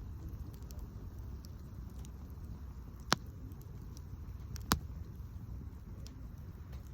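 Wood fire crackling with faint scattered ticks and two sharp pops, about three and four and a half seconds in, over a low steady rumble.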